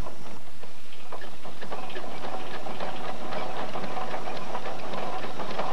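Steam ploughing engine running, its motion and gearing making a rapid, busy mechanical clatter that builds up over the first couple of seconds.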